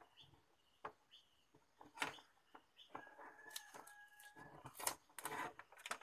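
A rooster crows faintly, one drawn-out call starting about three seconds in, among light clicks and knocks from hands working on the opened TV's parts.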